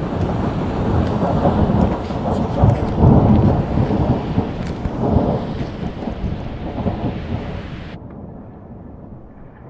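Thunder rumbling in long swells over a steady hiss of rain, loudest a few seconds in. It cuts off abruptly about eight seconds in, leaving fainter outdoor noise.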